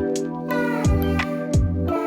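Background music with a steady beat: sustained instrumental chords over a regular drum pulse.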